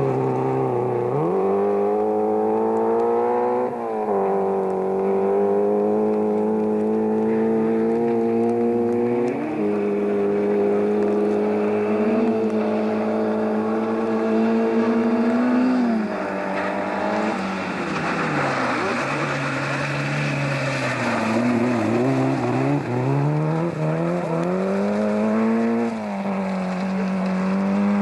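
Peugeot 205 GTI 1.9's four-cylinder engine driven hard on a dirt rally stage. The revs climb and then drop sharply at each upshift, fall away as it slows, and climb again as it accelerates.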